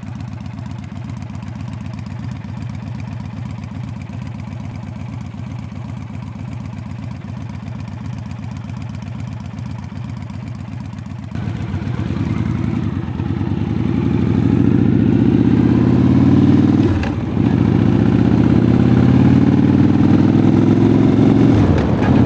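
Victory Vegas 8-Ball's V-twin engine running steadily at a low note, then from about eleven seconds in getting louder as the bike pulls away and accelerates, the engine note rising, dipping briefly at a gear change about seventeen seconds in, then rising again.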